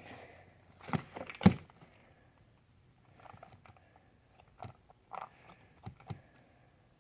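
Sharp clicks and taps from handling small objects at close range: two loud ones about a second and a second and a half in, then a few fainter ones near the end.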